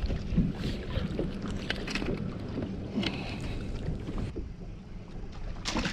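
Small waves lapping against a fishing boat's hull, with wind noise and a few light clicks.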